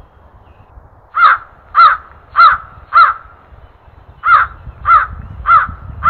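Hooded crow cawing: two series of four caws, the calls about half a second apart, with a pause of about a second between the series.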